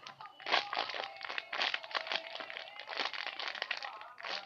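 Irregular crinkling and crunching as a small foam squishy toy is handled and squeezed close to the microphone.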